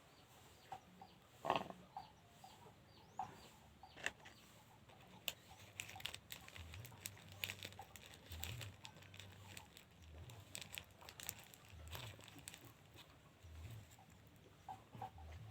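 Quiet, scattered clicks, taps and rustling from a chicken being held and handled by hand, busier in the second half, with faint chicken sounds.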